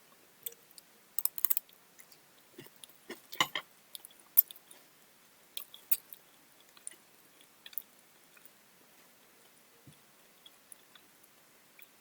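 A person chewing and eating food, with irregular short mouth clicks and crunches that are frequent for the first eight seconds or so, then sparse.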